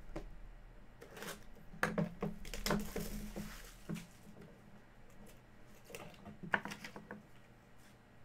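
Hands opening a small white cardboard box: irregular clicks and taps as the lid is worked off and the box handled, with a brief sliding scrape about three seconds in and a cluster of sharp taps between six and seven seconds in.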